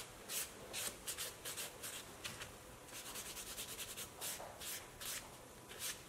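White nail buffer block rubbed back and forth over a gel fingernail, mattifying and shaping it: a row of short rubbing strokes, about two or three a second, coming faster for a moment near the middle.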